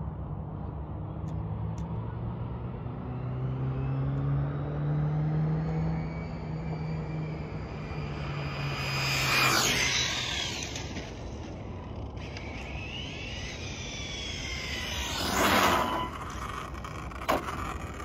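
A car engine pulling up through the revs as it accelerates away in the distance. Then the 6S brushless RC car whips past close to the ground twice, about nine and a half and fifteen and a half seconds in, each pass a quick high whine that drops in pitch as it goes by.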